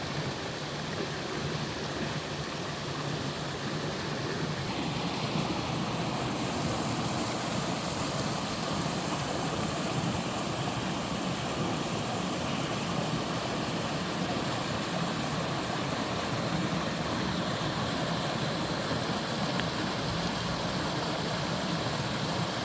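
Three-tiered mountain waterfall rushing steadily, with the hiss growing brighter about five seconds in.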